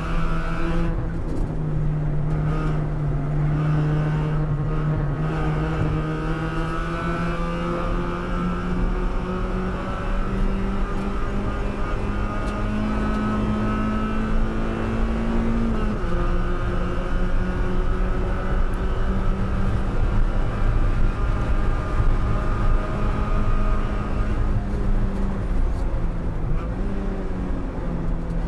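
Spec Miata's 1.8-litre four-cylinder engine, heard from inside the cockpit, pulling hard with its pitch climbing steadily. About 16 seconds in it shifts up, and the pitch drops suddenly before the engine settles to a steadier run. Tyre and wind noise run underneath.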